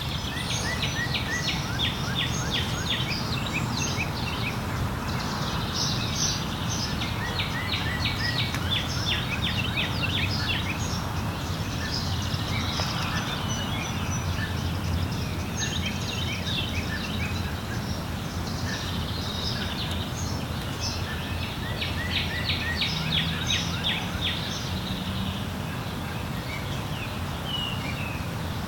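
Outdoor ambience of birds singing, repeating runs of quick high notes in several spells, over a steady low rumble.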